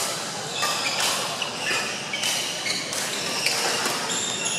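Badminton rally: rackets striking the shuttlecock in sharp cracks about once a second, mixed with short high-pitched squeaks of court shoes on the floor mat.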